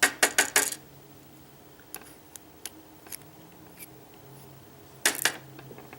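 Small sharp clicks and taps from handling tiny lock pins and picking tools: a quick cluster of clicks at the start, a few light ticks, then another short burst of clicks about five seconds in.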